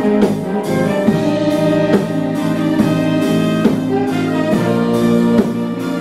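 Violins and a brass instrument playing a piece together in a small ensemble, held chords with new notes coming in about once a second.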